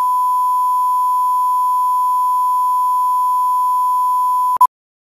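Steady 1 kHz reference test tone, a pure electronic sine tone, that cuts off sharply about four and a half seconds in and is followed a moment later by one short beep at the same pitch.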